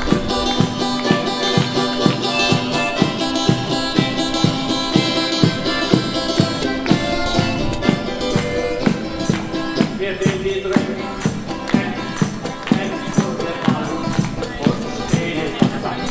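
One-man band playing a song from a backpack rig: drum strokes and tambourine jingles keep a steady beat under a pitched melody.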